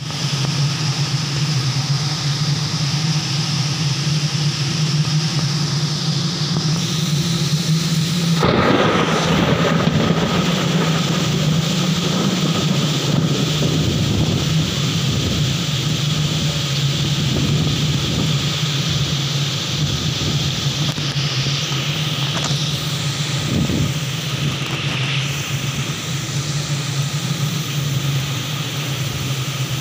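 Heavy rain pouring down in strong wind: a dense, steady hiss over a low rumble. It surges louder for a couple of seconds about eight seconds in.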